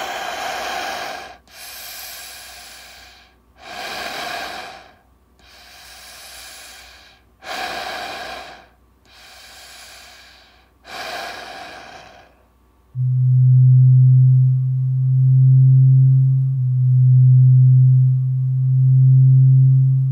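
Speculative reconstruction of Ouranosaurus sounds. First comes heavy, raspy breathing, louder out-breaths alternating with softer in-breaths, about seven in all. Then, about thirteen seconds in, a deep, loud, steady hum starts and swells four times.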